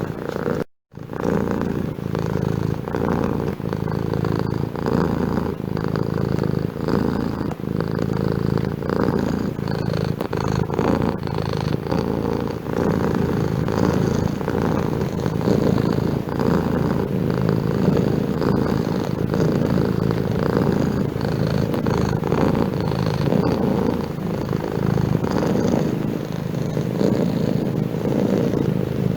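Domestic cat purring steadily and continuously, broken by a momentary dropout to silence about a second in.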